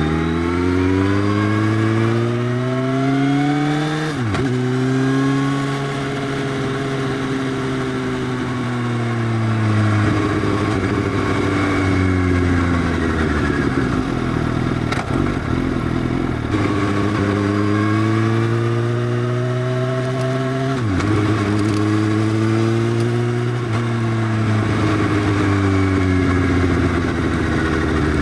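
Motorcycle with an Arrow full-system exhaust, its dB killer removed, accelerating with rising pitch, a quick gear change about four seconds in, then easing off and falling in pitch. It pulls away and shifts the same way again in the second half.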